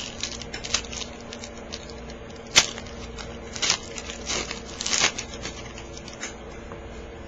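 Crinkling, tearing and sharp clicks of a trading-card pack wrapper being opened and the cards handled, with the loudest snap about two and a half seconds in. A steady low hum runs underneath.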